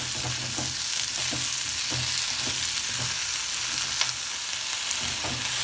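Capsicum and mushrooms sizzling in a little hot oil in a kadai, a steady hiss with faint knocks as they are stirred and tossed.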